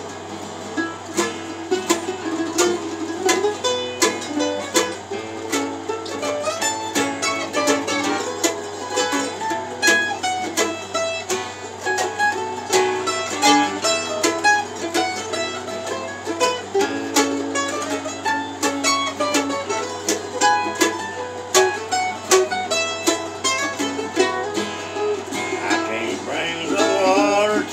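Acoustic guitars strummed together with a picked lead melody on a small string instrument: an instrumental break with no singing.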